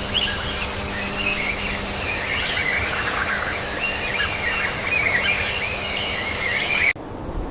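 Many small birds chirping and twittering at once, a dense chorus of short high calls over steady outdoor background noise; it cuts off abruptly near the end.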